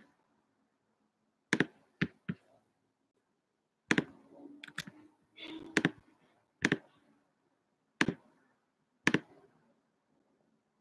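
Scattered single clicks at a computer, about ten spread unevenly over nine seconds, with a faint rustle between about four and six seconds in.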